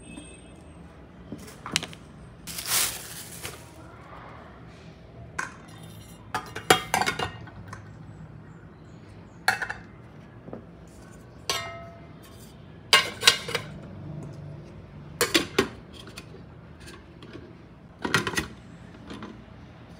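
Dishes and cutlery clinking: a series of separate clinks and knocks of utensils against plates or bowls, spaced a second or two apart, some ringing briefly. A short hiss lasting about a second comes about three seconds in.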